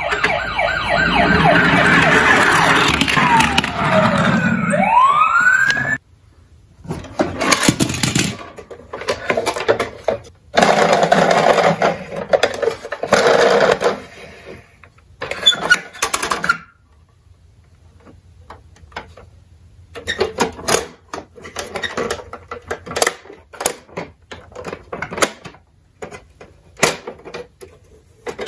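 Toy ambulance's electronic siren sounding, first in one long stretch with rising pitch sweeps for about six seconds, then in three shorter bursts. In the second half, sharp plastic clicks and taps as the toy is handled.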